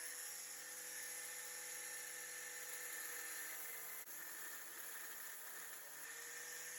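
Angle grinder running steadily with a high whir, its pitch sagging a little now and then as it cuts into the steel log holders on a trailer. It breaks off briefly about four seconds in.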